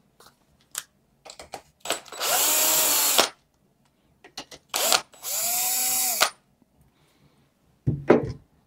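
A cordless drill/driver runs in two short bursts of about a second each, spinning up and winding down as it backs out the U-bolt of a bicycle handlebar clamp. Small handling clicks fall between the bursts, and a knock comes near the end.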